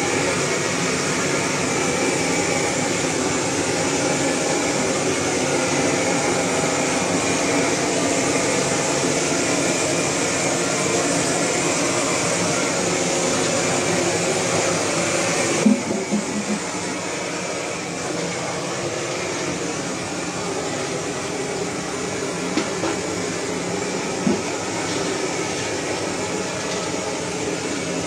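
Gas blowtorch roaring steadily while singeing the hair off a dog carcass. About halfway through, its hiss turns suddenly duller with a few clicks, and a couple of small knocks follow.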